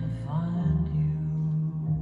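Background music: a slow instrumental passage of a song, with held low notes and no singing.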